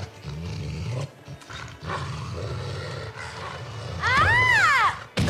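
Cartoon hyenas growling in a steady low rumble, then, about four seconds in, a loud high cry that rises and falls in pitch.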